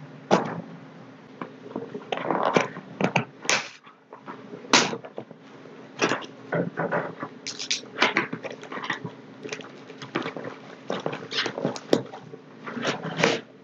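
Cardboard shipping box being pulled open by hand: the flaps scrape and crackle in irregular bursts, with rustling of the bubble wrap around the packed box inside.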